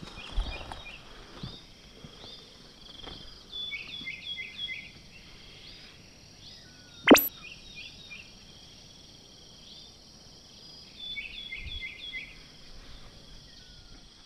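Outdoor ambience of birds chirping in short repeated calls, sometimes in quick runs of three or four, over a steady high insect drone. One sharp click about seven seconds in.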